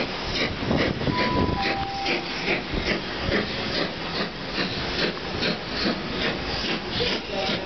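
Steam locomotive Mayflower, an LNER B1 4-6-0 with two cylinders, approaching under power: a steady run of exhaust beats, about three a second.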